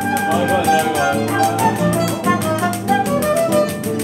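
Brazilian choro ensemble playing: cavaquinho and acoustic guitar accompany a high melody line, over a fast, even ticking rhythm.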